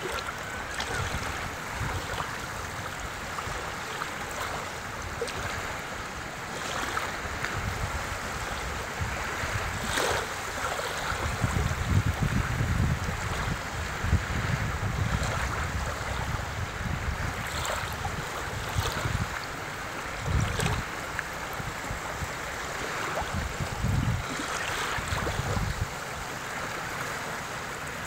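Small sea waves lapping and washing in at the water's edge, with gusts of wind buffeting the microphone.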